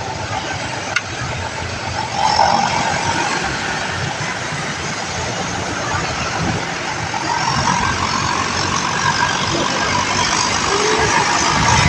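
Road vehicle noise: engines and tyres running steadily, getting a little louder toward the end.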